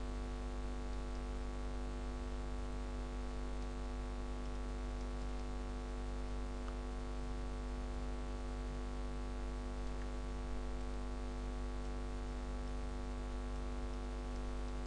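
Steady electrical hum with many evenly spaced overtones and a faint hiss, unchanging throughout: mains hum picked up in the recording chain.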